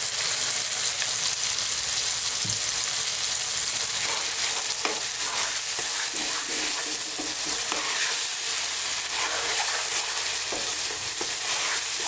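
Onion, garlic and curry-leaf masala sizzling steadily in oil in a nonstick pan. From about four seconds in, a spatula scrapes and stirs the tomato purée and ground spices through it.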